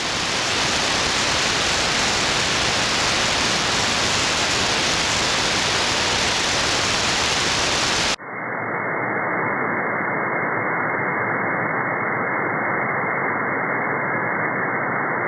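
Static hiss from an SDRplay RSP1A receiver tuned between stations on the 11-meter CB band, with no signal present. About eight seconds in, switching to lower sideband with a narrow 2.3 kHz filter abruptly changes it to a duller, band-limited hiss.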